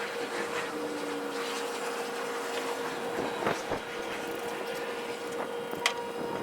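A vehicle engine running steadily with a constant whine, and a few sharp knocks and clanks, about three and a half seconds in and again near the end.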